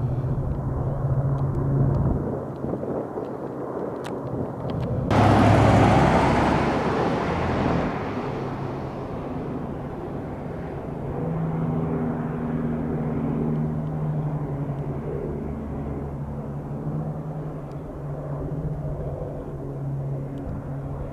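Firefighting aircraft engines at a distance. For the first two seconds an S-64 Air-Crane helicopter's engines and rotor give a steady low drone. A loud rush of noise starts suddenly about five seconds in and fades over about three seconds. From about eleven seconds a single-engine air tanker makes a steady droning pass.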